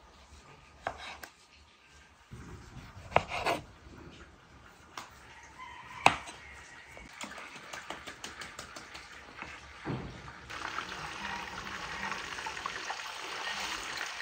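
Kitchen knocks and clicks, the loudest a sharp click about six seconds in, then raw beef burger patties frying in hot oil in a deep pot: a steady sizzle that sets in about ten seconds in and runs on.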